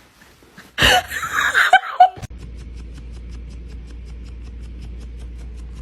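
A short burst of laughter about a second in, then a cut to background music: a steady low drone with a quick, even ticking beat.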